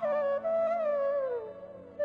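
Background instrumental music: a single melody line that bends between notes over a steady low drone, its phrase sliding down in pitch and fading toward the end.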